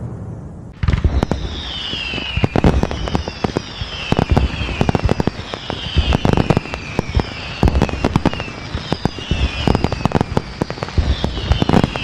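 Fireworks going off: a dense run of sharp bangs and crackles that starts about a second in, with falling whistles repeating every second or so.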